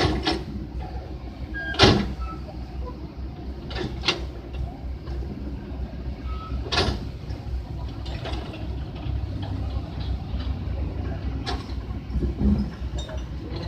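Heavy truck's engine running with a steady low rumble, broken by a few sharp knocks or clanks, the loudest about two seconds in.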